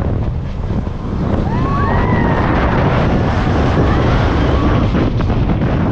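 Wind buffeting the microphone and the rumble of the Mind Bender steel roller coaster train running through its track at speed, with a faint rising-and-falling tone about a second and a half in.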